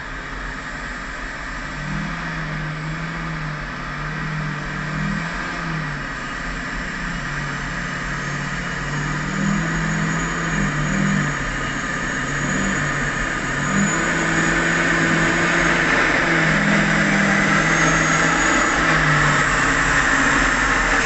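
Caterpillar 773E haul truck's diesel engine pulling away loaded. Its note steps up and down in pitch and grows louder as the truck comes close, with the Komatsu PC2000 excavator's diesel running behind it.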